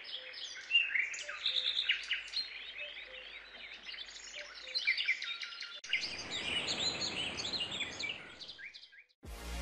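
A dense chorus of small birds chirping and twittering over a light background hiss. The hiss grows fuller about six seconds in, and the chorus fades out about nine seconds in, followed by a short noisy burst.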